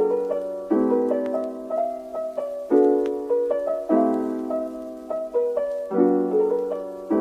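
Background music: a gentle piano piece with sustained chords struck about once a second.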